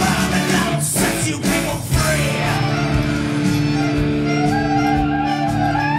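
Music playing at a steady, loud level: dense and busy for about the first two seconds, then long held notes over a regular low beat.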